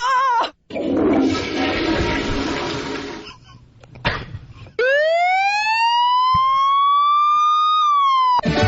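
Sound effects played as a gag: a toilet flushing, its rush fading out. Then a siren-like wail that sweeps up steeply about five seconds in, holds, and falls off near the end.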